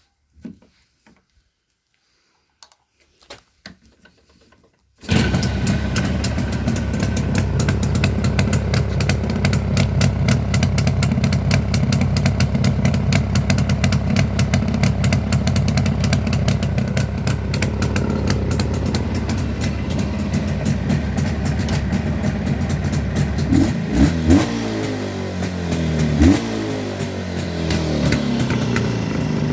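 Jawa 350 two-stroke twin motorcycle engine, on its original ignition and carburettor, catching after a few light knocks about five seconds in, then running steadily. Near the end the throttle is blipped twice, the pitch rising and falling each time.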